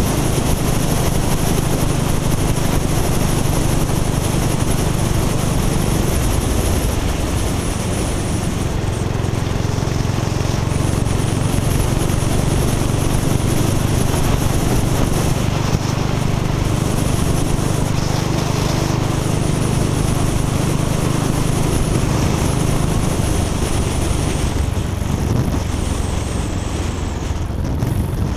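Motorcycle engine running steadily at road speed, mixed with wind rush on the microphone. The note eases slightly near the end.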